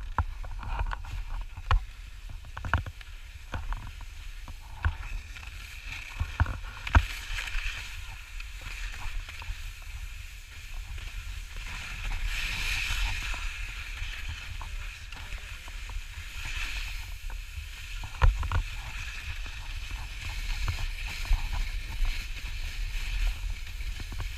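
Skis hissing over snow in swells every few seconds, over a steady low rumble of wind on the microphone, with a few sharp knocks.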